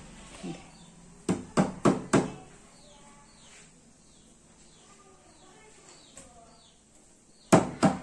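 Sharp wooden-sounding knocks or taps: a quick run of four about a second in and another run near the end. Faint high bird chirps come in between.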